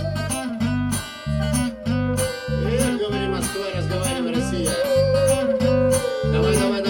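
Live band playing an up-tempo dance tune without vocals: guitar over a bass guitar pulsing about twice a second, with a lead line that slides up and down in pitch.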